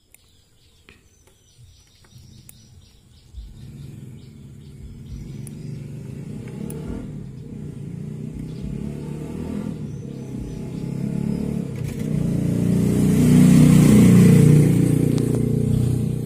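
A motor vehicle engine passes close by. Its rumble builds over several seconds to a loud peak near the end, then begins to fade.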